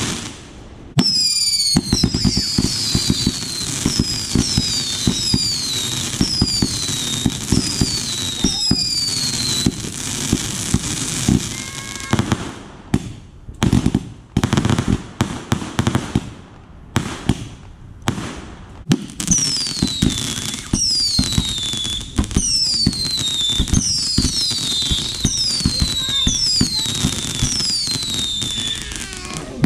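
A consumer firework cake firing a continuous barrage of pops and crackling stars, with a run of short whistles, each falling in pitch, during the first third and again through the last third.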